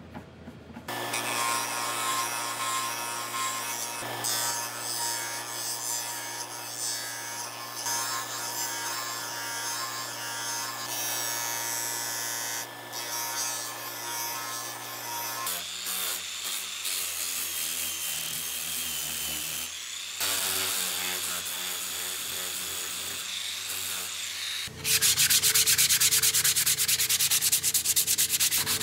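A grinder fitted with a sanding disc runs steadily while a walnut piece is pressed against it and sanded. The grinding sound changes about halfway through. Near the end comes louder hand sanding: quick back-and-forth strokes of sandpaper on the walnut.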